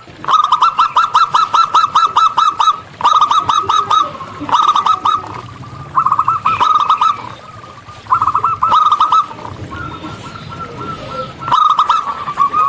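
Zebra dove (local perkutut) cooing in quick runs of short, clipped notes, about seven a second, in bursts of a few to a dozen notes with short pauses between. A fainter, softer run comes in past the middle.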